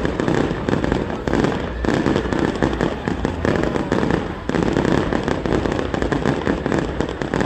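Fireworks going off in a dense, continuous run of bangs and crackles, with people's voices underneath.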